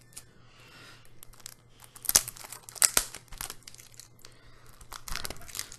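Plastic shrink-wrap being torn and peeled off a CD box set by hand: crinkling film with sharp crackles, the loudest about two and three seconds in.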